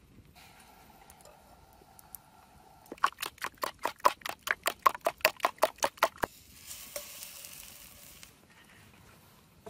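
A quick, even run of about twenty sharp taps or knocks, roughly six a second for about three seconds, followed by a short soft hiss.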